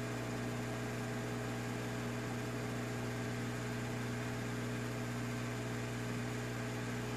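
Hot air rework gun blowing steadily: a constant motor hum with airflow hiss as it heats a phone board to desolder its microphone.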